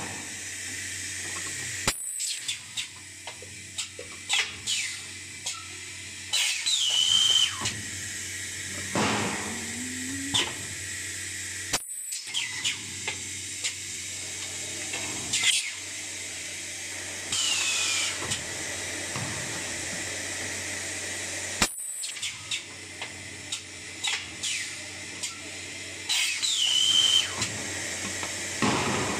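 Two-mold fully automatic blow molding machine making HDPE bottles, running its cycle about every ten seconds. Each cycle has a sharp clack, a run of clicks, and loud hisses of compressed air, over a steady hum.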